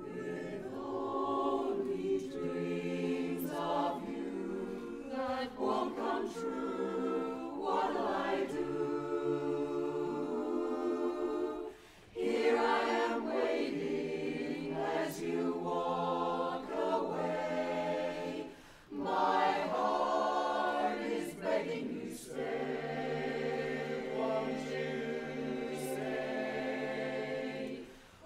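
Mixed-voice barbershop chorus singing a cappella in close four-part harmony, with short breaks between phrases about 12 and 19 seconds in.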